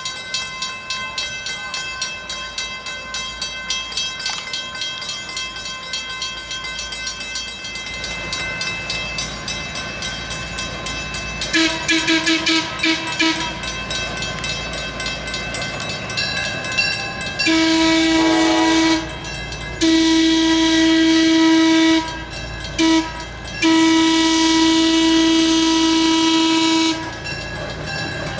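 A small diesel switcher locomotive's horn sounds the grade-crossing signal, long, long, short, long, after a brief stuttering toot. It plays over a crossing warning bell ringing rapidly and the rising rumble of the approaching diesel engine.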